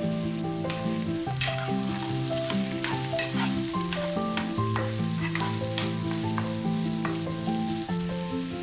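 Sliced red peppers, carrots and onions sizzling in a frying pan and being stirred with a silicone spatula, with repeated short scrapes and taps against the pan. Background music with held notes plays underneath.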